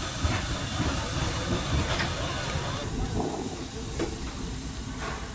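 Narrow-gauge steam locomotive standing with steam hissing steadily, with a few faint knocks.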